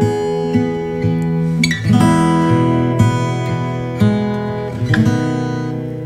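Background instrumental music with acoustic guitar, chords plucked about once a second and left to ring.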